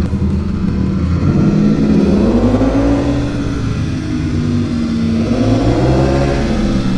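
Ducati V4 S superbike's V4 engine running in third gear at about 50 km/h. Its note climbs about two seconds in, holds, dips briefly and climbs again.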